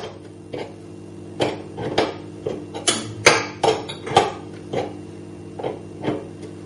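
Steel spanner clicking and clinking on the nut of a threaded-bar jig as it is turned in short strokes and refitted, about a dozen irregular metallic knocks. The nut is being undone to let off the pressure of the piston spring on a lever espresso machine. A steady low hum runs underneath.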